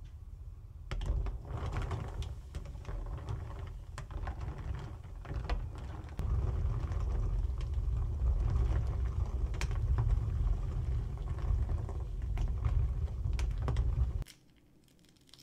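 Quail eggs boiling in a steel pot while being stirred with a wooden spatula: the water bubbles with a low rumble, and sharp clicks come as the shells knock against each other and the pot. It grows louder about six seconds in and cuts off abruptly about a second before the end.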